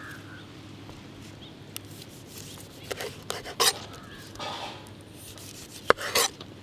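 Large kitchen knife cutting through the skin and flesh of a dragon fruit on a wooden board: a few short slicing scrapes about halfway through, then a sharp knock of the blade on the board near the end, followed by one more brief cut.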